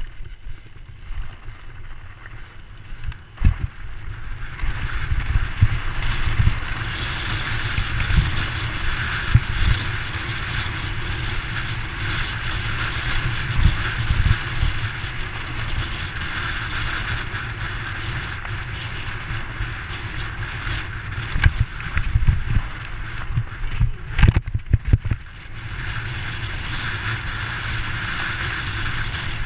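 Giant Trance Advanced mountain bike riding fast over a rough stony track: tyre rumble and wind rushing over the camera microphone, with frequent knocks and rattles as the bike hits stones. It eases off briefly about five seconds before the end, then picks up again.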